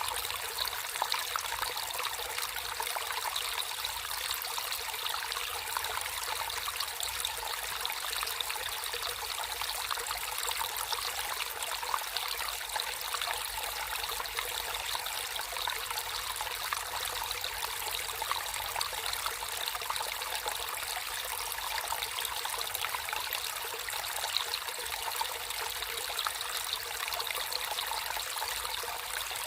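Water running and trickling steadily in a natural stream, a constant hiss with small splashes and no break.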